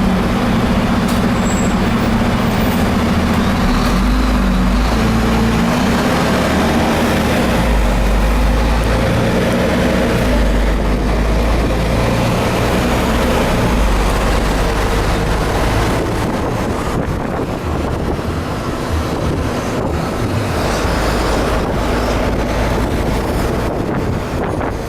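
Volvo B340M bus's diesel engine running under way through its Voith automatic gearbox: a loud, low drone that shifts in pitch several times and eases off a little about two-thirds of the way through.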